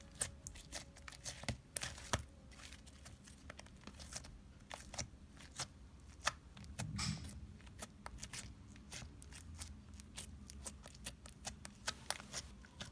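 Sticky slime being squeezed and stretched by hand, giving irregular small clicks and pops.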